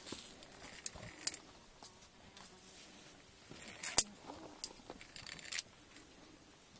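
Scattered sharp metallic clicks and clinks of via ferrata carabiners and gear against the steel safety cable and rock, the loudest about four seconds in, with a quick run of clicks shortly after.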